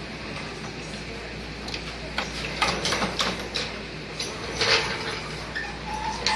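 Irregular clicks and clattering knocks from tools and parts being handled while the engine is disconnected for removal, starting about two seconds in over a steady shop background.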